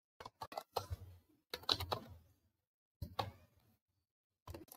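Computer keyboard keys clicking in four short bursts of typing, with brief pauses between them.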